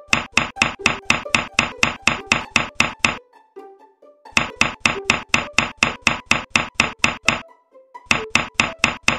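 Rapid, even knocking at about five strokes a second, in three runs with short breaks between them, over faint background music.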